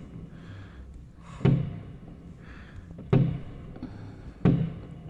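Three firework bursts banging, about a second and a half apart, heard through a closed window.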